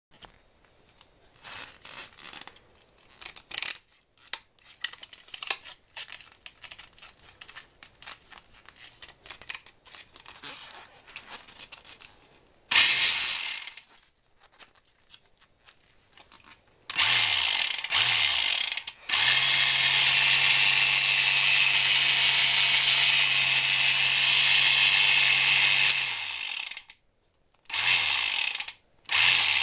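Miya Epoch 700 electric fishing reel: its motor runs in short bursts that wind down in pitch as it stops, then runs steadily for about seven seconds before cutting off, with two more short bursts near the end. For the first dozen seconds there is only light clicking and rattling as the reel's parts are handled.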